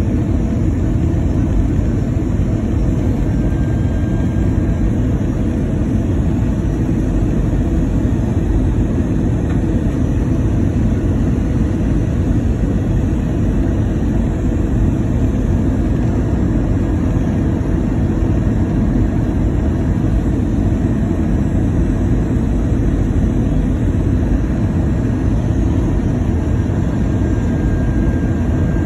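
Steady low roar inside the cabin of an Airbus A319 airliner in flight, the engines and rushing air blending into one even noise.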